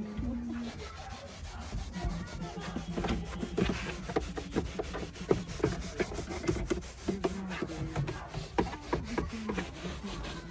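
Irregular rubbing and scrubbing strokes mixed with small clicks and knocks: a brush or cloth being worked over a car's interior surfaces during detailing.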